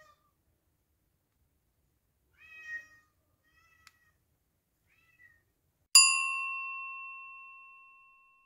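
A cat meows, followed by two faint short mews. About six seconds in, a single bell chime is struck, the loudest sound, and rings out, fading slowly.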